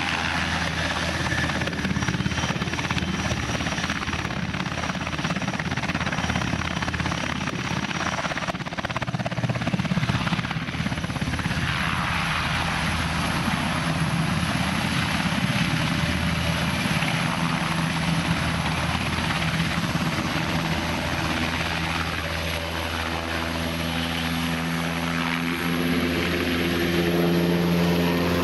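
Heavy engines running steadily, a continuous low drone with a broad rushing noise over it that holds an even level.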